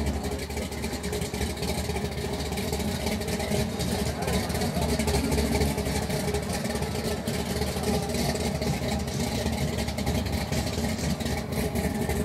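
Engine of a classic 1950s Chevrolet running at low speed as the car rolls slowly past.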